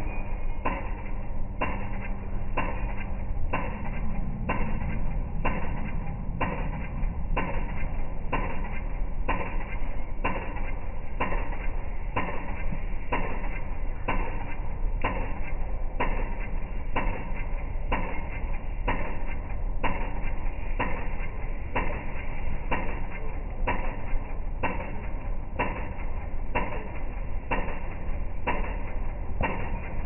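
Pedestrian crossing signal clicking steadily, a little under twice a second, over a low rumble of city traffic.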